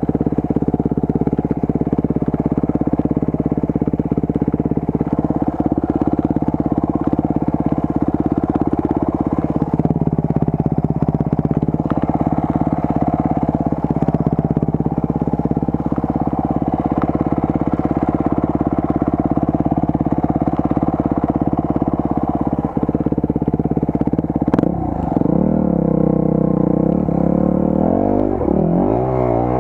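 Enduro motorcycle engine running steadily under way, its pitch drifting a little, then the revs swinging rapidly up and down under quick throttle changes near the end.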